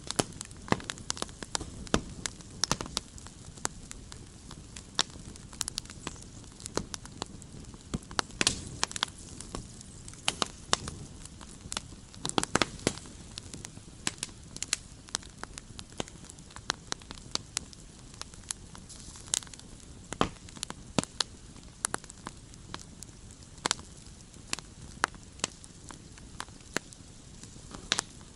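Wood campfire burning and crackling, with frequent sharp, irregular pops and snaps over a steady low hiss.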